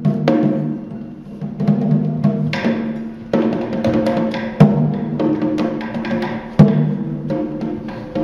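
Live stage music: deep drum strikes at uneven intervals over sustained low pitched tones, with the heaviest hits about halfway through and again near the end.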